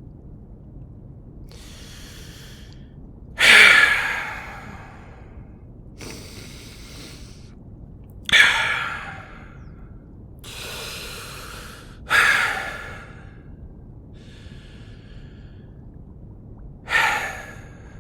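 A man breathing heavily in anger: four cycles of a quieter inhale followed by a loud, forceful exhale, about four seconds apart.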